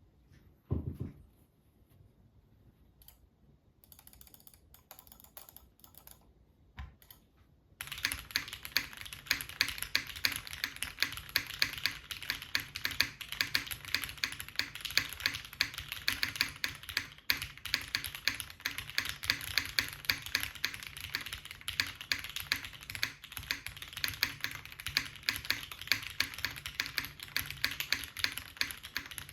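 Axiom Studios Typ65+ mechanical keyboard with broken-in Cherry MX Black linear switches, a carbon-fibre half plate and JTK keycaps, typed on in a fast, steady stream of key clacks that starts about eight seconds in. Before that there is a low thump about a second in and a few faint taps.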